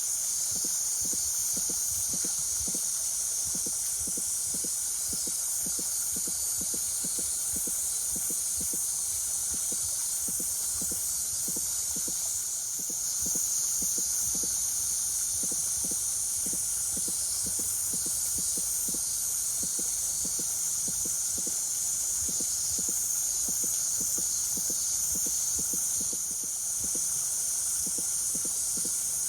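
Steady high-pitched drone of a summer cicada chorus, with faint low ticking underneath.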